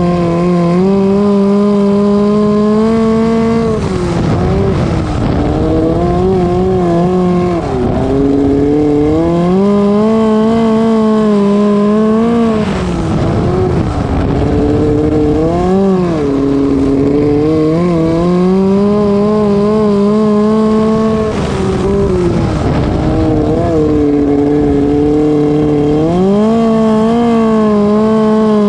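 Midget race car engine heard from on board, running at high revs with its pitch dropping and climbing again about every four to five seconds as the driver lifts off and gets back on the throttle through the corners of a dirt oval.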